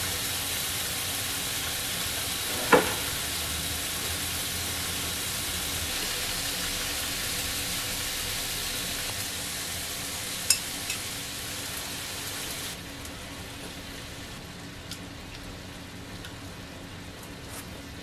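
Hanwoo striploin cubes sizzling on a hot grill plate, a steady frying hiss that turns quieter about two-thirds of the way through. A sharp click early on and a clink of cutlery on a plate around ten seconds in.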